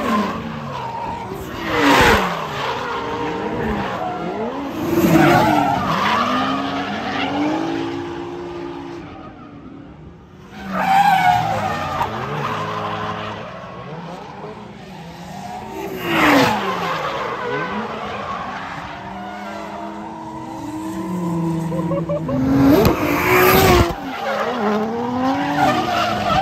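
Drift car engine revving hard, its pitch sweeping up and down over and over, with tyres skidding. There are loud surges every few seconds and a brief lull about ten seconds in.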